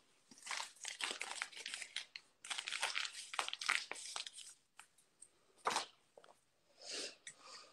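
Rustling and crinkling handling noise, heaviest in the first half, then two short scrapes: a phone's microphone rubbing against hands and clothing as the phone is moved around.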